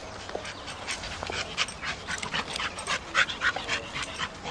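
Dogs play-wrestling at close quarters, with quick, irregular panting and scuffling in short bursts, several a second.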